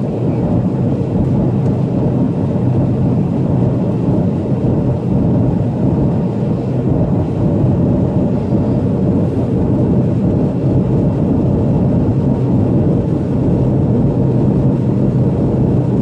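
Jet airliner cabin noise during the climb after takeoff: a steady deep drone of engines and rushing air, with a faint steady whine above it.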